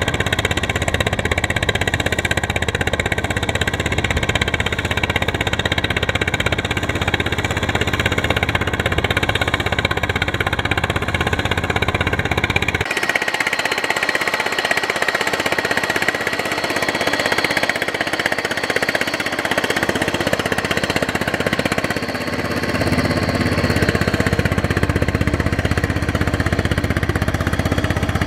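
Single-cylinder engine of a homemade iron-wheeled rice-field cultivator running steadily as it works the field. Its sound changes abruptly about halfway through and again near the end, at cuts between shots.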